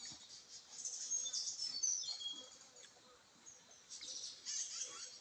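Small birds chirping in short, high-pitched notes, busiest in the first half and again near the end.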